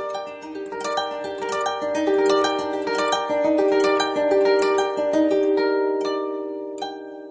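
Shamisen music: a run of plucked notes in a steady melody, the last note plucked near the end and left ringing as the piece fades out.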